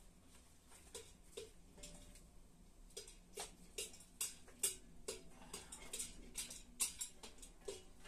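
Faint, quick, regular tapping, about two or three taps a second.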